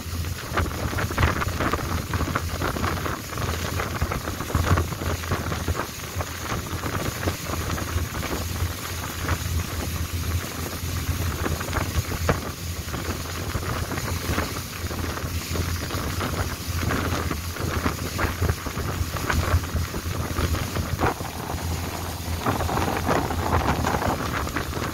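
Longtail boat's engine running steadily under way, a constant low drone, with wind buffeting the microphone.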